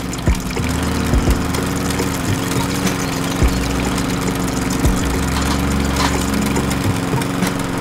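Small motor running with a steady engine-like hum and a few scattered low knocks, driving a miniature juice-pressing machine.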